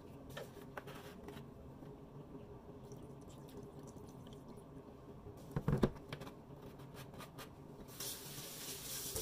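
Soy sauce poured from a large plastic jug onto raw pork in a stainless steel bowl. About six seconds in come a few loud knocks as the jug is set down on the counter, and a steady hiss starts near the end.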